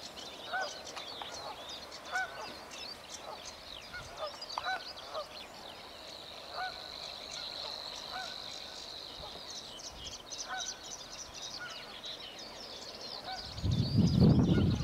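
Savi's warbler singing in a reedbed: a steady, buzzing reel that runs for about four seconds in the middle, among high chattering songs of other small birds. Repeated honking calls sound behind it, and a loud low rumble comes in near the end.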